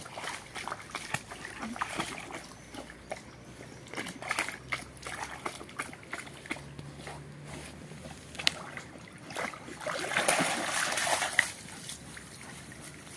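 A large shepherd-type dog wading in shallow pond water, its legs sloshing and splashing in short irregular strokes, with a louder stretch of splashing about ten seconds in as it scrambles out onto the bank.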